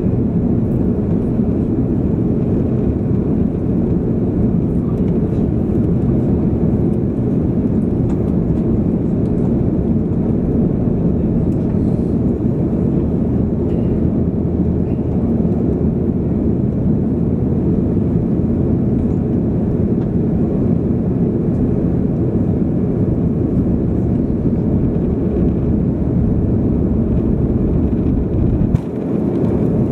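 Airbus A330-300 airliner with Rolls-Royce Trent 700 engines, a steady low jet rumble as it flies its approach. A brief click about 29 seconds in.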